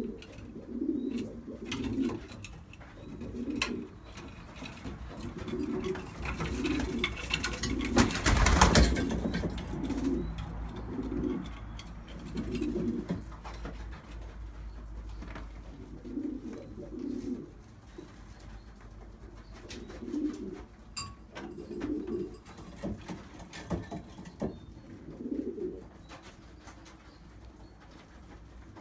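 Racing pigeons cooing, a low coo repeated every second or two. About eight seconds in comes a short, loud flurry that sounds like wing flapping.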